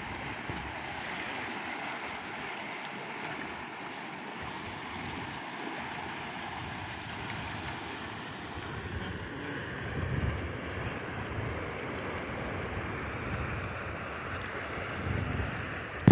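Sea waves washing onto the shore, with wind buffeting the microphone in low gusts that are strongest about ten seconds in and again near the end.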